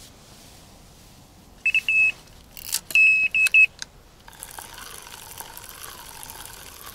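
Electronic carp bite alarm beeping in two short runs of high beeps, with a few sharp clicks between them: a fish is taking line. After the beeps, a steady rustling and handling noise.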